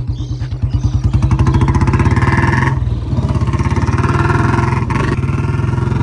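Royal Enfield Bullet's single-cylinder engine running while riding, its beat quickening as it accelerates over the first couple of seconds, with brief dips about three seconds in and near five seconds. The rider reports the engine has been missing (misfiring).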